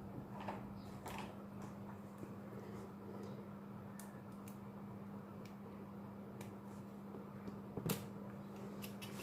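Faint, scattered clicks and taps of small repair tools working on a smartphone's plastic housing, over a steady low hum.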